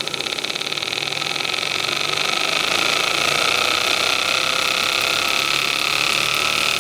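Graham TVR1A twin-cylinder model steam engine running on live steam and picking up speed as the throttle is opened: a fast even beat of exhaust puffs closes up into a steady hissing whir, louder over the first few seconds and then holding.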